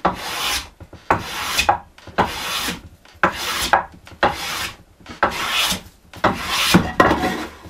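Hand plane shaving a wooden board in repeated push strokes, roughly one a second.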